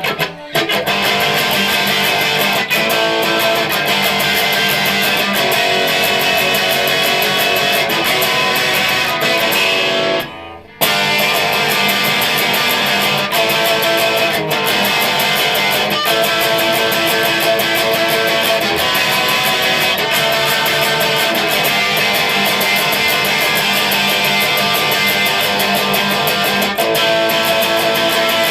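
Electric rhythm guitar strumming chords in a full-band rock song with drums. The music stops dead for about half a second about ten seconds in, then comes straight back in.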